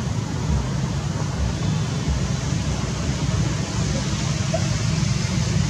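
Steady low rumble with an even hiss above it, with a faint short chirp about four and a half seconds in.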